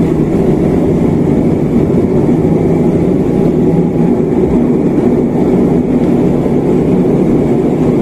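Steady drone of a turboprop airliner's engines and airframe heard inside the cabin as the plane rolls on the ground after landing, low and even with a few steady tones running through it.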